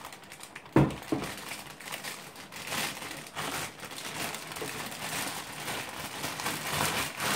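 Clear plastic packaging bag crinkling as it is handled, with a sharp knock a little under a second in.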